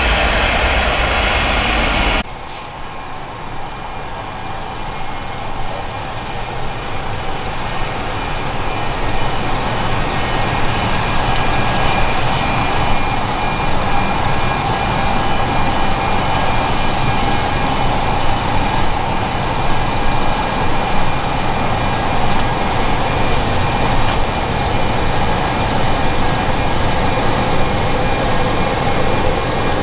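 Another jet's engine noise cuts off abruptly about two seconds in. It is followed by the twin General Electric CF34 turbofans of an Embraer E190 on approach, growing steadily louder with a thin, high fan whine over the engine rumble.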